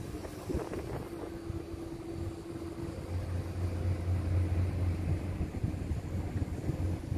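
Low, uneven rumble of wind buffeting the microphone, with a faint steady hum underneath.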